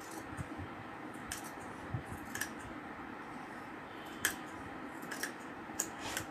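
Scissors cutting through folded fabric: a series of short, sharp snips at uneven intervals, about eight in all.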